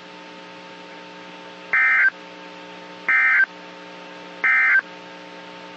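Emergency Alert System end-of-message signal from a NOAA Weather Radio broadcast: three short bursts of warbling digital data tones, about 1.3 seconds apart, marking the end of the warning. A steady low radio hum runs beneath.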